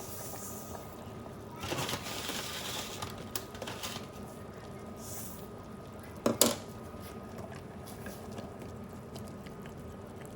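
Food cooking in a pot on the stove, a steady low hiss, with a louder burst of hiss about two seconds in and a single sharp clink of cookware a little after six seconds.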